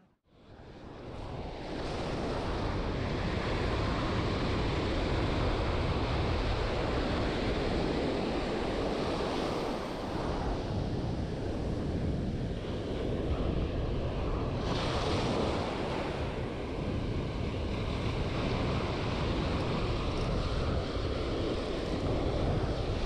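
Surf washing in over a shallow beach with a steady rush, mixed with wind buffeting the microphone. It fades in from near silence over the first couple of seconds, and a wave surges louder about two-thirds of the way through.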